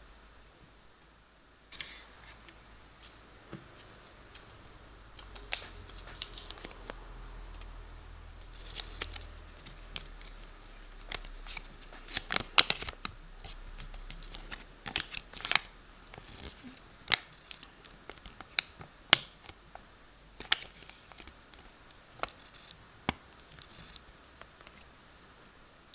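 Thin paper instruction leaflet from a Kinder Surprise egg being unfolded and handled, crackling and rustling with a run of sharp snaps that starts about two seconds in.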